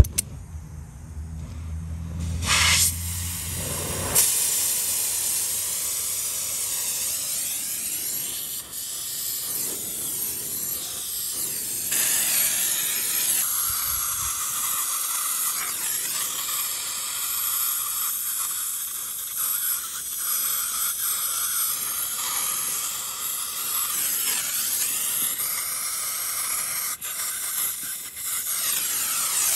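Oxy-acetylene torch flame hissing steadily while it heats a copper refrigerant line joint for brazing. The hiss starts about two and a half seconds in.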